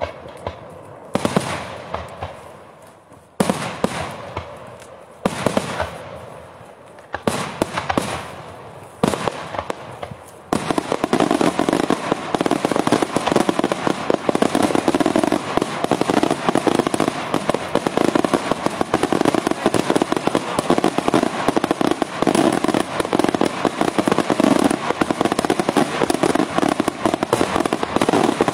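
Daytime fireworks: several separate loud bangs of bursting shells in the first ten seconds, then an unbroken rapid-fire barrage of crackling reports from about ten seconds in.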